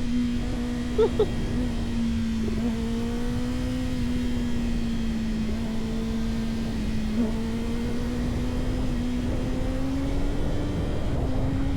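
Kawasaki ZX-6R inline-four engine running at a steady pitch while the bike is ridden, over a low rumble. The note rises a little near the end.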